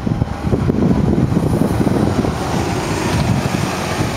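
New York City transit bus driving past close by, its engine and tyres rumbling, with wind buffeting the microphone.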